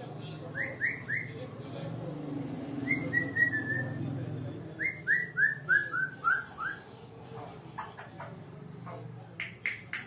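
African grey parrot whistling in short runs of quick notes: three brief rising chirps, then a fast falling run, then about six rising whistles in a row, followed by a few sharp clicks near the end.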